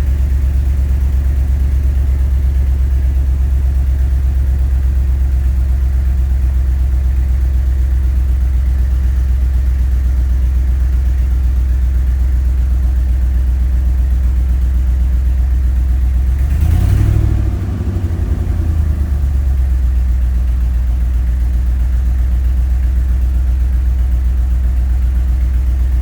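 Ford F-250's V8 engine idling steadily, with one brief rev about two-thirds of the way through that rises and falls back to idle. Its spark plugs have been re-gapped to cure a misfire, and it still struggles a little at low rpm.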